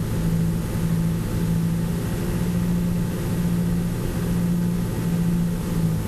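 Tractor engine running steadily under load while driving front- and rear-mounted mower conditioners through grass, a constant low hum.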